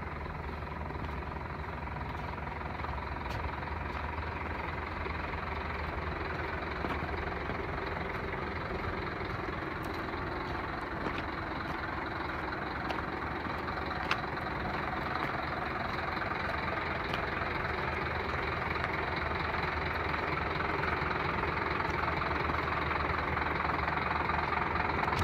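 Scania P270 truck's five-cylinder diesel engine running as the truck drives slowly, a steady low engine note that grows louder toward the end as the truck comes closer.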